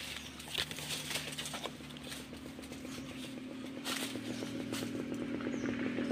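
Footsteps rustling through dry bamboo leaves and twigs, with a small engine droning in the background that grows louder from about four seconds in.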